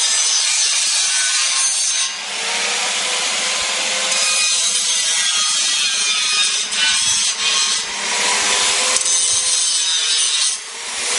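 Angle grinder grinding steel, a steady rough grinding noise with a faint motor whine, easing off briefly about two seconds in, again around eight seconds, and near the end.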